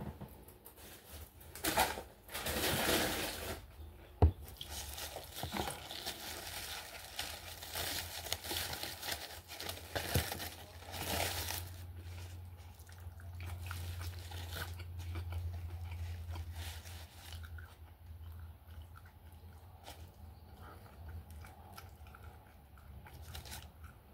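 Aluminium foil taco wrappers crinkling and rustling as they are unwrapped and handled, in loud bursts a couple of seconds in and again about ten seconds in, with sharp clicks and a softer, scattered crackle later. A low steady hum runs under the second half.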